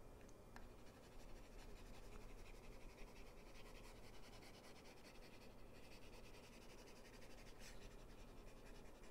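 Near silence with the faint scratching and light taps of a stylus on a pen tablet as digital notes are erased.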